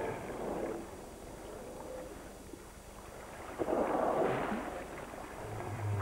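Southern right whales surfacing in choppy sea: a whooshing blow of breath about three and a half seconds in, over wind and water noise. A low steady drone comes in near the end.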